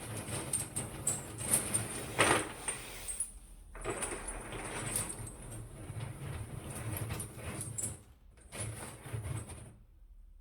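Interactive ceramic sculpture being handled, its ceramic parts rattling and clinking in a rushing wash meant to recall the sea. It comes in three long swells and stops shortly before the end.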